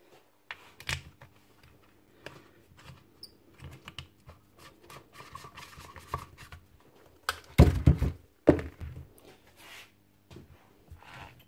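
Small clicks, scrapes and taps of a screwdriver working at the carbon-brush cap on a Makita 9069 angle grinder's plastic motor housing, with a few louder knocks about seven and a half seconds in.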